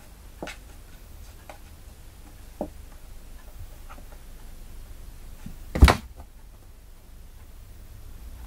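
A few light taps and scuffs of kittens' paws on a wooden shelf, then a loud thump about six seconds in as a black kitten tumbles off the shelf and lands.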